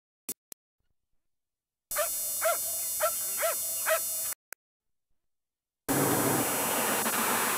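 A Doberman whining in five short rising-and-falling yelps about half a second apart, over steady tape hiss. About six seconds in, a steady rushing noise starts, as loud as the yelps.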